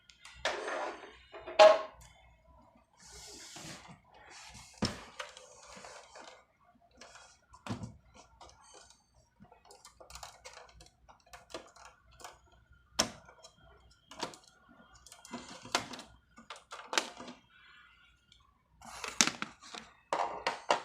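Desktop PC case being opened and handled: a string of sharp clicks and knocks of plastic and sheet-metal parts, with scraping between them. The loudest knock comes about a second and a half in, and another cluster near the end.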